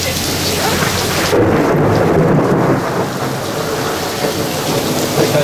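Steady heavy rain, with a low rumble of thunder from a nearby lightning strike coming in about a second in and rolling for a couple of seconds.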